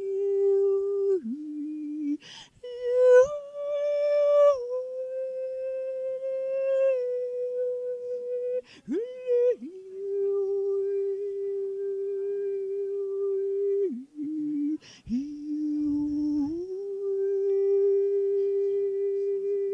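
A woman's voice doing sound-healing toning: long, steady, wordless hummed notes, each held for several seconds. The notes step between a low, a middle and a higher pitch, with short breaths between them.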